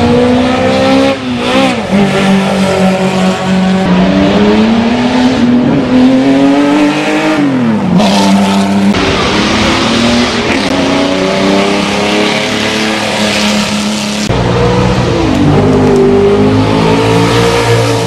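Racing car engines revving hard as they accelerate down a sprint strip. The pitch climbs and falls back again and again at the gear changes. The sound jumps abruptly a few times, where separate runs are strung together.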